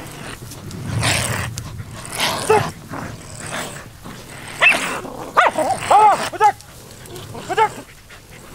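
Hunting dogs barking and yelping in a quick string of short calls about halfway through, with a few more near the end, as they bay at a wounded honey badger.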